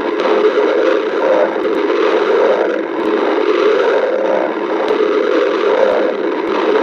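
Human stomach growling from hunger: a steady, continuous rumble that swells and eases slightly.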